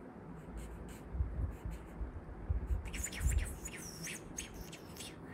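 Felt marker writing on paper: low knocks of the pen and hand on the table, then about three seconds in a quick run of short, high scratchy strokes with a few squeaks as the letters are written.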